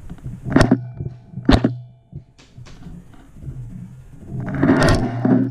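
Airsoft gun firing: two single sharp shots about a second apart, then a short rapid burst near the end, over a steady low hum.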